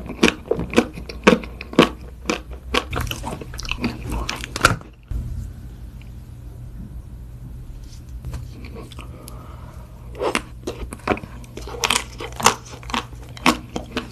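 Close-miked biting and chewing of Magnum chocolate-coated ice cream bars: quick, crisp crunches as the hard coating cracks, in two runs with a quieter stretch of about five seconds between them.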